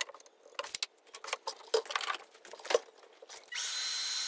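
Rapid, sped-up clicks and knocks of a tape measure and an MDF board being handled. About three and a half seconds in, a Bosch Glide miter saw starts running with a steady whine as it cuts the MDF to length, sped up and turned down in volume.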